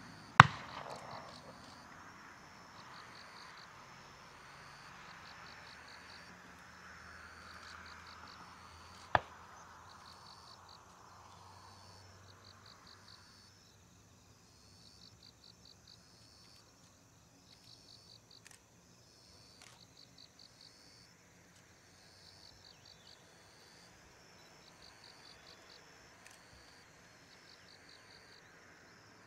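Crickets chirping in steady, evenly repeating pulsed trills, over a faint hiss of distant Boeing 767 jet engines that fades away about halfway through. A sharp, loud click comes just after the start and a smaller one about nine seconds in.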